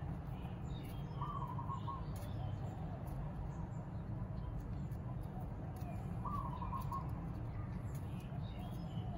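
A dove cooing twice, each short phrase about a second long and some five seconds apart, over a steady low hum.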